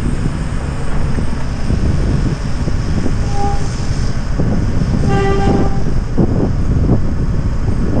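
Wind buffeting the microphone over a steady low rumble, with two short horn toots about three and five seconds in, the second longer and fuller.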